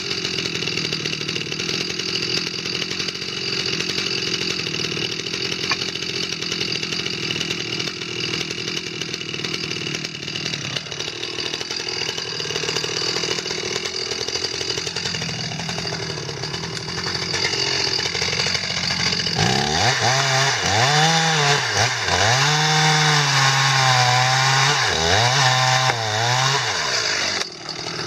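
Two-stroke chainsaw running steadily. About two thirds of the way in it is revved hard several times, its pitch sagging and recovering between revs as the engine takes load.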